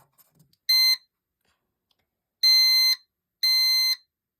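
EST fire alarm system sounder beeping a high, steady electronic tone: one short beep, then three half-second beeps about a second apart as the panel is switched into a test mode.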